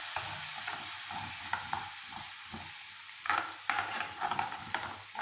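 Grated ginger and spices frying in desi ghee in a pan, with a little water just added, sizzling steadily and slowly dying down. From about three seconds in, a spoon scrapes and knocks against the pan several times.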